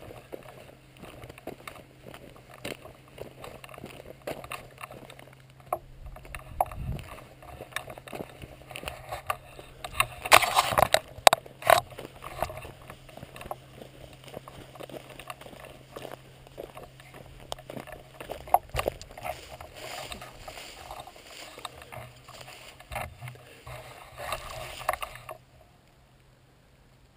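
Handling noise from a shotgun-mounted camera as it is carried, with footsteps over dry, cracked mud: scattered clicks, knocks and rubbing, a louder clatter about ten seconds in, then the sound cuts off abruptly near the end.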